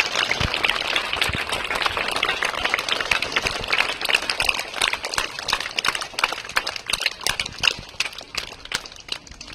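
Audience applause: many hands clapping, thinning to scattered claps and fading near the end.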